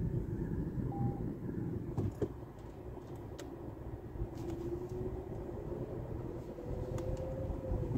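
Car moving off at low speed, its engine and tyre rumble heard from inside the cabin, with a faint engine note rising slowly in the second half. A short beep about a second in and a few light clicks.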